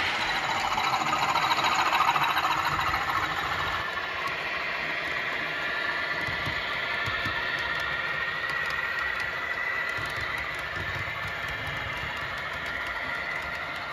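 Model trains running on the layout: the steady whine of the small electric locomotive motors with the rumble of wheels on the rails. It is louder for the first few seconds, then settles to a steady level.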